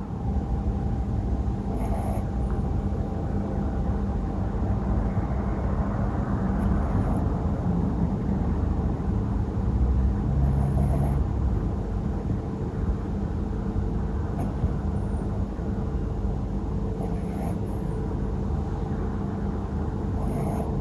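Cavalier King Charles Spaniel puppy snoring in her sleep, a low rumbling snore, with a steady hum behind it.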